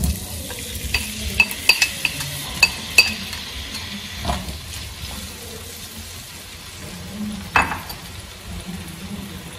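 Diced tomatoes sizzling as they hit hot oil in a frying pan, while wooden chopsticks scrape and stir them with a quick run of sharp clicks over the first few seconds. One louder knock comes near the end.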